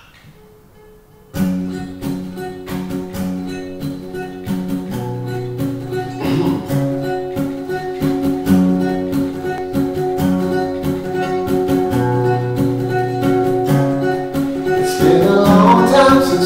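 Acoustic guitar starting up suddenly after a second and a half of near quiet: a rapid picked pattern over held bass notes. It grows louder near the end, as a voice starts to sing.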